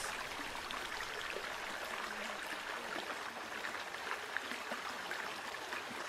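Steady rushing of running water from a nearby stream, an even outdoor wash with no distinct events.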